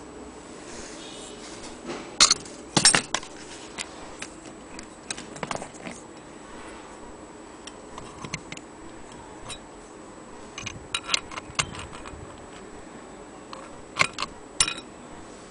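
Steel chains and brass parts of an antique longcase clock movement clinking and jangling as the movement is handled: irregular sharp metallic clinks, the loudest a pair about two to three seconds in, a cluster around eleven seconds and two more near the end.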